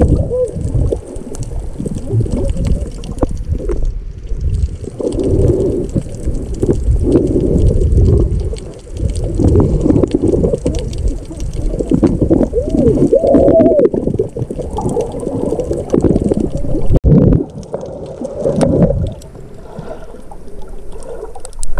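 Underwater sound picked up through a submerged camera: muffled rushing and gurgling of water and bubbles as a snorkeler swims, rising and falling in surges, with a few short warbling bubble sounds about thirteen seconds in.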